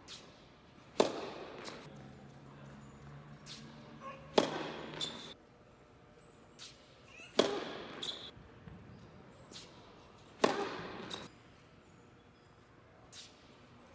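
Tennis serves: the racket strikes the ball four times, about three seconds apart, each sharp crack followed by a short echo in the indoor tennis hall, with fainter knocks in between.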